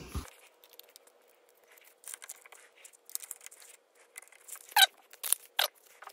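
Alien Gear ShapeShift holster parts being handled and fitted together, the plastic holster shell pressed onto the fabric-covered appendix backer: light rustling and scraping, with a few sharper plastic clicks near the end.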